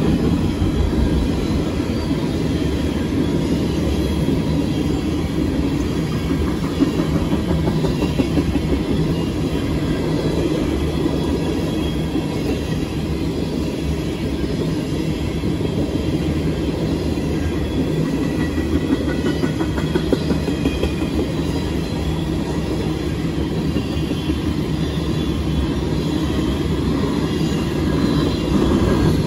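Freight train of empty oil tank cars rolling past, a steady rumble of steel wheels on the rails.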